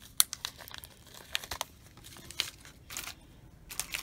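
Small plastic bags of rhinestone spacer beads crinkling and rustling as they are handled, with a few sharp clicks scattered through.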